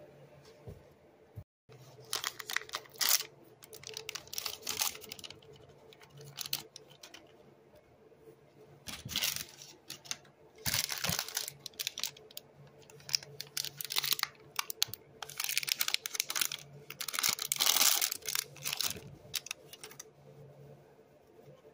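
Paper towel rustling and scratching in short, irregular bursts as fingers shuffle gummy fruit snacks across it, over a faint steady hum.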